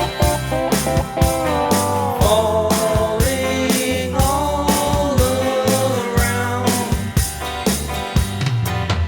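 Rock band playing an instrumental passage: drums keeping a steady beat under bass and guitar, with a melodic lead line that bends between notes.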